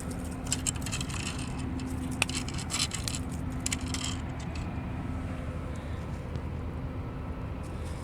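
Steady low motor hum, with a run of light clinks and rattles during the first half.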